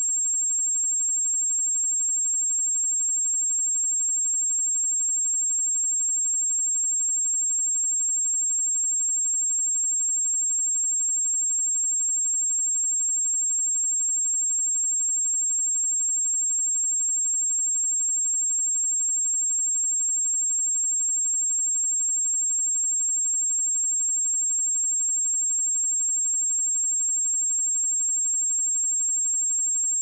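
A steady pure sine-wave test tone at 7504 Hz, one unwavering high-pitched whistle.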